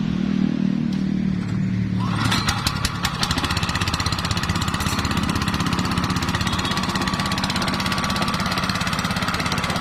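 Small engine running steadily with a fast, even pulse. From about two seconds in, a loud steady hiss joins it.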